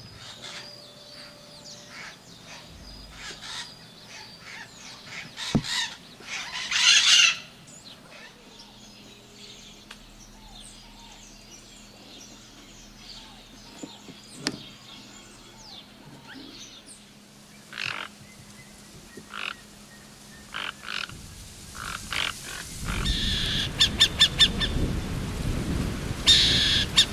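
Wild birds calling: scattered short chirps and calls, then a run of rapid repeated honking notes over a low rumble near the end.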